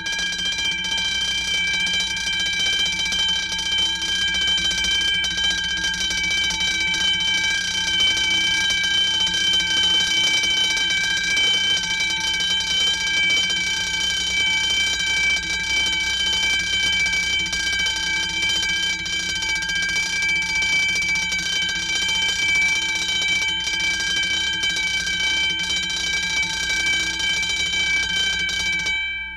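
Fire alarm ringing loudly and steadily without a break.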